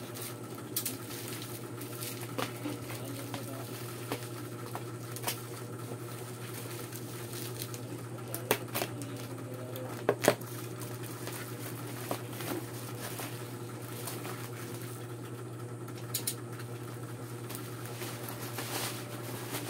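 Bubble wrap and packing tape being pulled and peeled off a parcel by hand: scattered crackles, rustles and small snaps, a few sharper ones about eight and ten seconds in, over a steady low hum.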